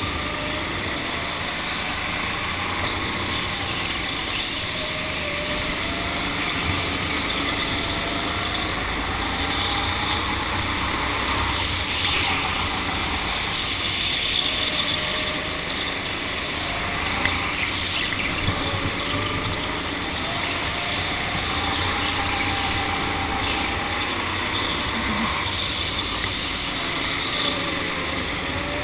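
Go-kart driven around a track: its motor note rises and falls again and again with speed through the corners, over a steady rush of noise.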